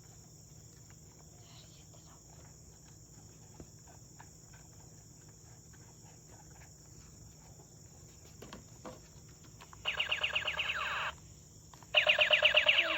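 Electronic toy gun sound effect from a small built-in speaker: two bursts of rapid-fire shots, about a second each, the second louder, played with the silencer attachment fitted, which the toy's sensor detects to change the sound. A few light plastic clicks come just before the first burst.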